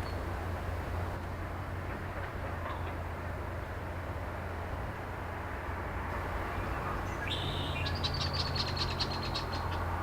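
Steady low drone of an excavator working some way off, with a bird's rapid high trill starting about seven seconds in and lasting a couple of seconds.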